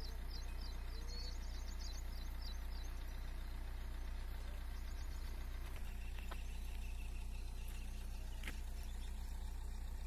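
A steady low hum throughout, with a quick run of faint high chirps over the first few seconds.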